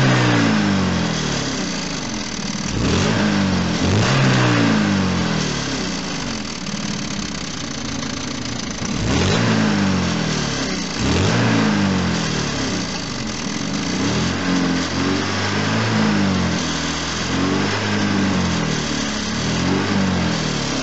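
ZMZ-409 inline-four petrol engine being blipped over and over, its pitch rising with each rev and falling back toward idle, to bring out a knock in the engine.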